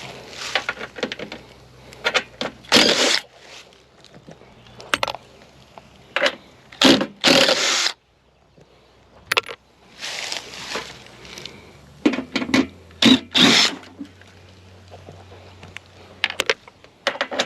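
Irregular metal scraping and clanking from hand tools working the bolts that hold a refrigerator's compressor, in short uneven bursts with a brief lull about halfway through.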